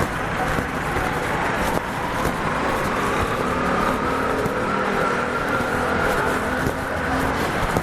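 City street traffic: a motor vehicle's engine running close by, its pitch rising slowly through the middle, over the steady rumble of traffic.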